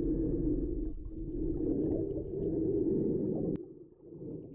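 Muffled low rumble of water moving around a camera submerged underwater. A sharp click comes about three and a half seconds in, after which the rumble drops much quieter.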